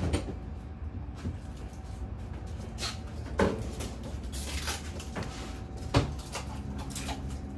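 Cabinet doors and fittings being opened, shut and handled: three sharp knocks, at the very start, about three and a half seconds in and about six seconds in, with lighter clatter between them over a steady low hum.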